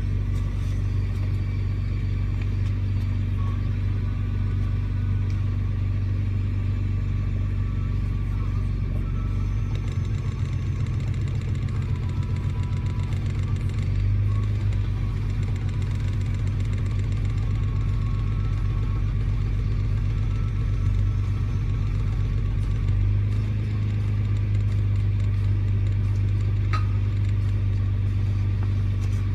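Nissan Skyline R32 GT-R's RB26 twin-turbo straight-six idling, a little rough, during a brake-cleaner vacuum leak test. The idle note changes several times: about a third of the way in, near halfway, and about three quarters through. This is how an idle responds when the spray reaches a leak; here the leak is around the cylinder 6 intake manifold and the throttle body.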